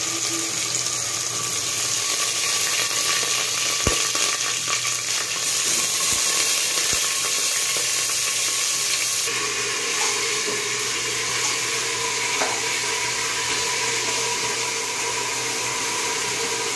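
Wet, freshly washed rice sizzling in hot oil in a pressure cooker as it is fried, the water on the grains boiling off. A few light knocks come about 4, 6 and 7 seconds in.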